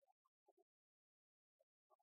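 Near silence: the sound is almost empty, broken only by a few very faint, clipped blips lasting a fraction of a second each.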